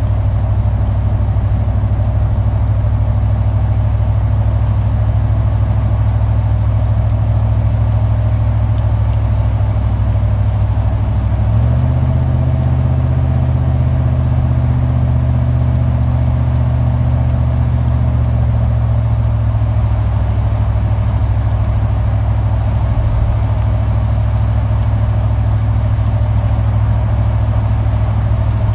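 Steady engine and road drone of a car being driven, heard from inside the car. About twelve seconds in, the engine note steps up slightly in pitch and holds for several seconds before easing back down.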